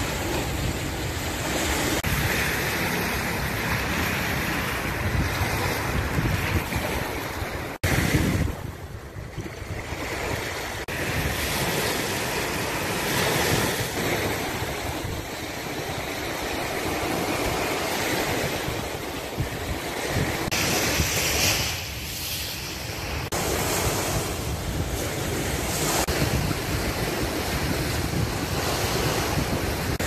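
Sea waves washing up on a sandy beach, with wind buffeting the microphone. The sound surges and eases, with a brief quieter dip about eight seconds in.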